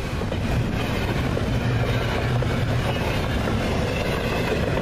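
Freight train cars rolling past at close range: a steady noise of steel wheels running on the rails.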